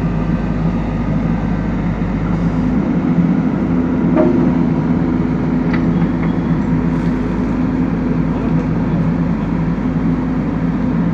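Diesel engine of a JCB backhoe loader running steadily, with a couple of light clinks near the middle.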